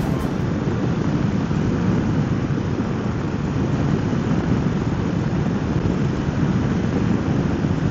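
Steady wind rush on the microphone and motorcycle engine and road noise while riding a KTM adventure motorcycle at a constant speed, a deep, even rumble with no distinct tones.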